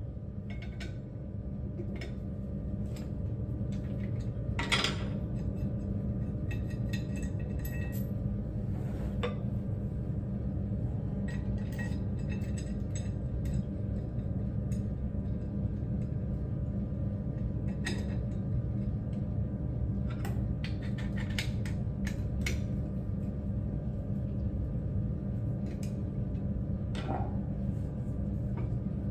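Scattered light metallic clinks and knocks of steel hammers and an anvil stake being handled, one sharper ringing clink about five seconds in, over a steady low hum.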